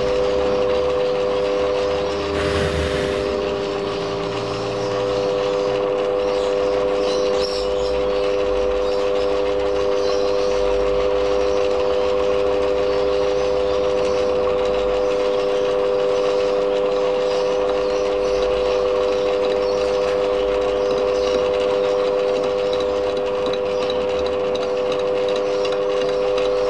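Metal lathe running with a fly cutter spinning in the chuck, taking an interrupted facing cut across the end of a cast-iron cylinder casting: a steady machine whine over the noise of the cut, with a brief hiss about three seconds in.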